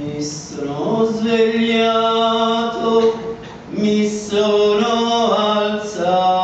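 A man singing a bhajan solo in long held notes, with a short pause for breath about halfway through.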